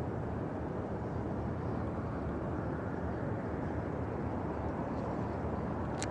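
Steady, low outdoor rumble without any clear pitch, presented as one of the mysterious 'strange sounds' of 2012. A sharp click comes right at the end.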